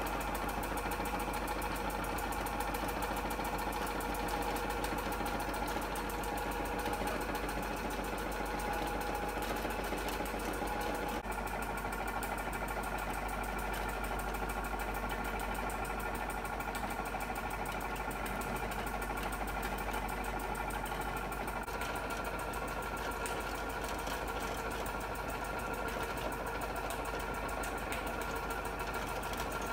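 Toy live-steam engine with a vertical brass boiler running steadily, with a fast, even mechanical beat, together with the clatter of the Doll zoo accessory it turns by belt. The sound changes abruptly twice, at about 11 and 22 seconds in.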